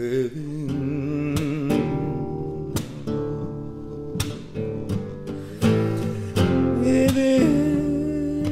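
Acoustic Spanish guitar strummed in a slow song, with a man's voice singing along. A strong strum opens it and about half a dozen more strums follow.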